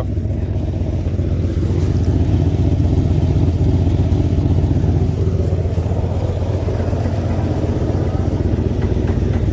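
Ford 289 small-block V8 running steadily, with an even low rumble and no revving.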